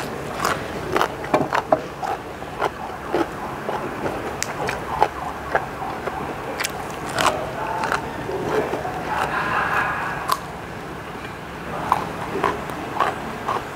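A person chewing fresh raw greens close to a clip-on microphone: irregular crisp crunches and wet mouth clicks.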